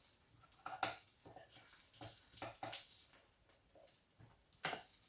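Faint, scattered clicks and knocks of things being handled in a kitchen, the loudest about a second in and near the end.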